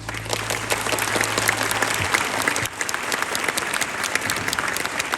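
Concert audience applauding as a song ends, with the music's last low note dying away about two seconds in.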